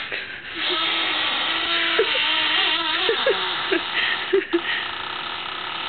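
Squeaky refrigerator squealing: a held squeal, then several short squeaks.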